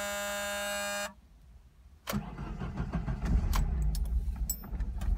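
A dashboard warning buzzer drones steadily and cuts off about a second in. About a second later the fuel-injected twin-cam four-cylinder engine of a 1986 Alfa Romeo Spider fires from a cold start and runs on its own, with no throttle.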